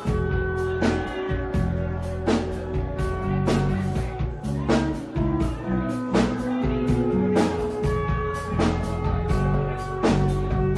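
Live band music: electric guitar and electric bass over a steady drum beat.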